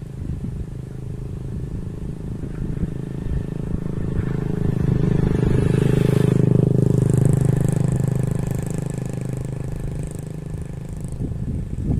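A motorcycle engine passing along the road, growing louder to a peak about halfway through and then fading away.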